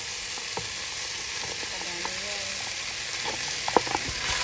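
Oil sizzling steadily in a hot pot as boiled beef pieces and fat are tipped onto sautéing onion, ginger and garlic. A few sharp knocks come near the end as a wooden spoon scrapes the meat out of a plastic container.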